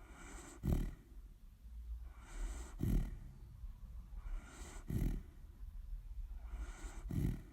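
Dog snoring in a steady rhythm: four low snores about two seconds apart, each led in by a softer, breathy hiss.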